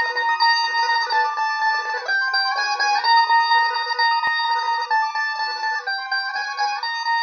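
Music: a plucked guitar playing a high, bright melody of quickly changing notes, with almost no bass.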